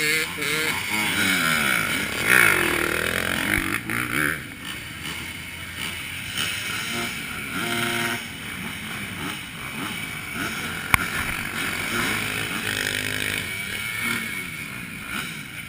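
Several dirt bike engines revving and pulling away, their pitches rising and falling over one another and the sound gradually fading; a single sharp click about eleven seconds in.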